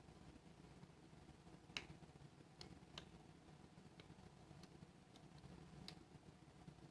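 Faint, scattered clicks of a lock pick and tension wrench working the pins of a Master Lock 410 LOTO padlock as it is picked, about seven clicks over several seconds over a low steady hum.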